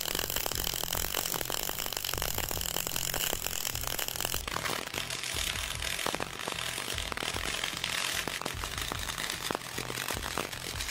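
CO2 semi-automatic welding arc burning steadily with a dense, continuous crackle, feeding 1.2 mm solid wire at about 310 A and 31.7 V. This is the second pass of a multi-pass weld on 32 mm thick steel plate.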